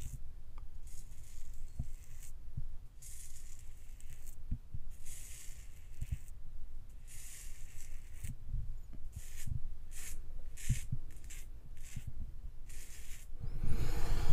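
A double-edge safety razor, a Parker semi-slant, scraping through lathered stubble on a scalp in a series of short strokes, about a dozen, each a brief crisp scrape. Soft knocks come between the strokes. The strokes belong to the second pass of a head shave.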